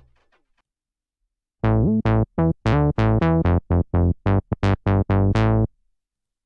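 u-he Hive 2 software synthesizer playing its "Funkay Bass 1" bass preset: a run of about a dozen short, clipped bass notes, starting about a second and a half in. Each note has a bright attack that quickly dies away.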